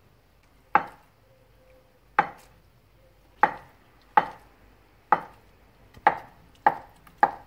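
Chef's knife cutting through a block of tofu and knocking on the cutting board. About eight sharp knocks, spaced further apart at first and coming faster toward the end as the tofu is diced into small cubes.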